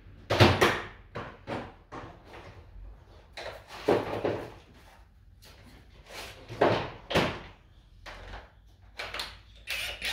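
Irregular metal clanks and knocks from hand tools and parts being handled while working on the brake and hub assembly, with the sharpest knock about half a second in.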